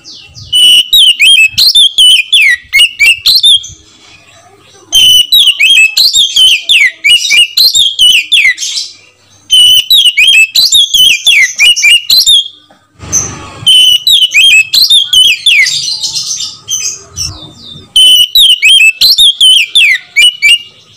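Oriental magpie-robin (kacer) singing: loud, rapid phrases of sweeping whistles and trills in five bursts of about three seconds each, with short pauses between.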